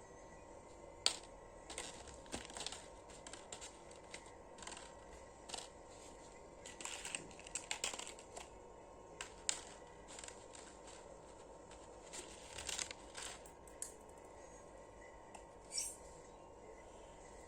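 Hands handling small plastic toy pieces and their packaging: faint, irregular clicks and short bursts of crinkling, busiest about seven to eight seconds in and again around twelve to thirteen seconds in.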